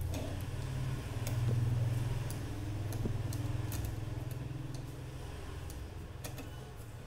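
A low rumble that swells about a second and a half in and fades toward the end, with scattered light clicks of metal tweezers touching components on a power-supply circuit board.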